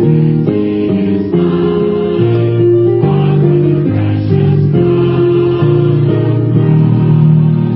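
A group of people singing a hymn together, with acoustic guitar accompaniment.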